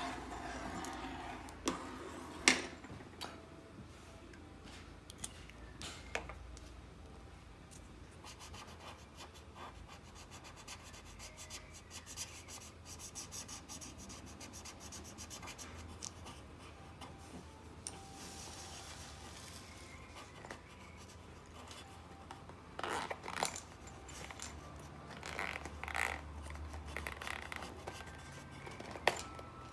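Drawing on paper: a pencil and then a felt-tip marker colouring in with quick back-and-forth strokes, a faint scratchy rubbing. A few sharp taps stand out, the loudest about two seconds in.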